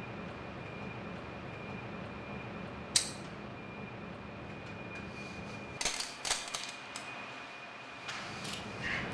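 A steady low hum with a thin high tone over it, broken by a sharp click about three seconds in and a quick cluster of clicks and knocks around six seconds in.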